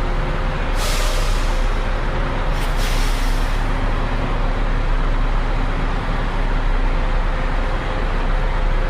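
Bus engine idling steadily, with two sharp air-brake hisses about a second in and again near two and a half seconds, each fading away over about a second.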